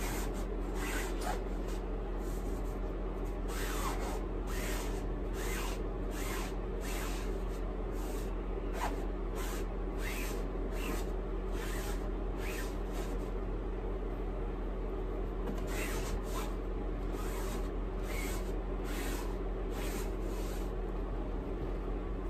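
A damp washcloth wiping dust off a lampshade in quick rubbing strokes, about two a second, with a short pause past the middle. A steady low hum runs underneath.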